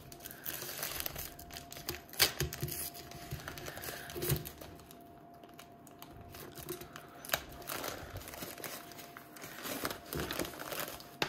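Plastic packaging crinkling and tearing as a sealed bag is worked open by hand, with scattered sharp crackles and ticks and a quieter stretch about halfway through.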